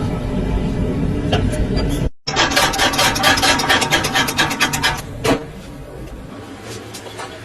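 Car noise: a steady low rumble, then after a cut a rapid, even rattling or clicking at about ten strokes a second that lasts nearly three seconds and then fades.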